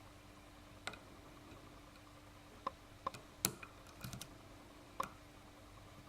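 Small, scattered metallic clicks and taps as a Ruko lock cylinder is pried open and its parts handled, about eight in all, the loudest midway.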